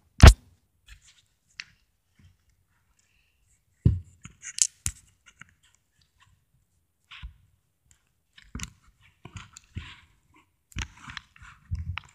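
Sharp plastic clicks and knocks from handling a small yellow plastic container while its lid is being pried open. A loud click comes just after the start and a knock about four seconds in; after a quiet stretch, scattered small clicks and scrapes follow near the end.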